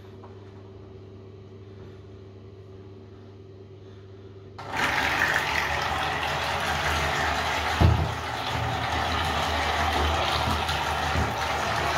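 Faint steady hum, then about five seconds in a sudden start of loud water churning and splashing from the small 3D-printed boat's propeller spinning in bathtub water, driven by its syringe vacuum engine; one thump comes a few seconds later.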